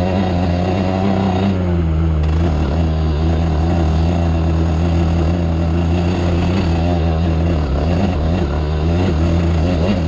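Off-road vehicle engine running under way, its pitch rising and falling slightly with the throttle.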